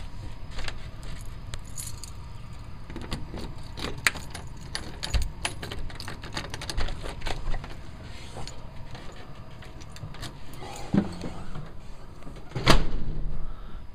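Keys jangling and a door's knob and deadbolt being handled: a run of small metal clicks and rattles, with one louder knock near the end.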